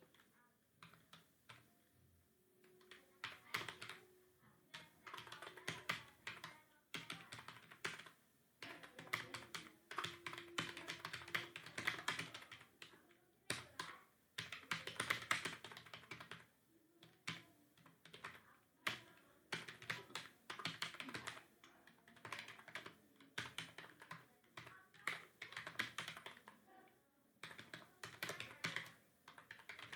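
Typing on a computer keyboard: irregular runs of rapid keystroke clicks, broken by short pauses.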